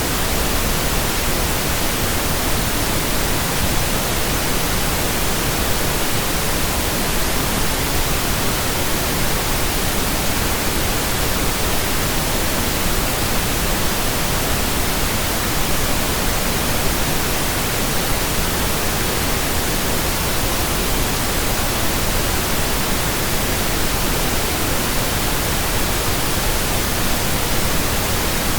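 Steady synthesised pink noise: a soft, even hiss like static from a radio not tuned to a station, unchanging throughout.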